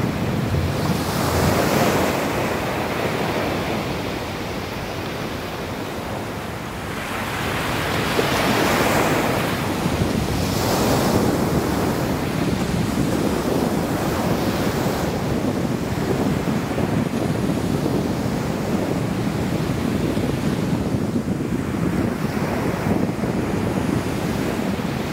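Ocean surf breaking on a beach, a steady wash that swells and eases several times as waves come in, with wind buffeting the microphone.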